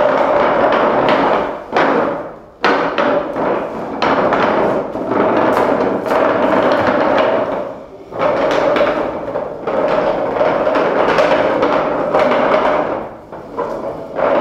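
Live improvised experimental percussion and noise: a dense scraping, rattling wash over a steady mid-pitched tone, held in long stretches broken by a few short gaps.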